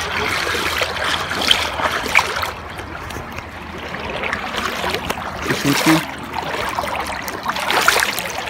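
Shallow river water flowing and rippling over stones close to the microphone, with a splash near the end.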